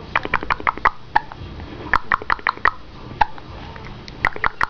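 Newborn baby with hiccups, fussing: runs of short, high squeaks, several a second, in bursts separated by short pauses.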